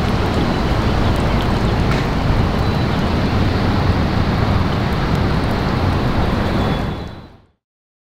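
Steady outdoor rush of wind over river water, with a low rumble of wind buffeting the microphone. It fades out about seven seconds in.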